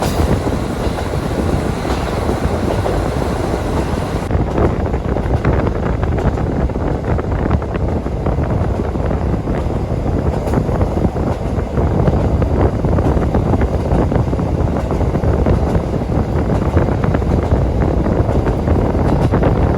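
KiHa 40 diesel railcar running along the line, heard from inside the car: a steady rumble of engine and wheels on rails, with wind noise. The higher hiss drops away about four seconds in.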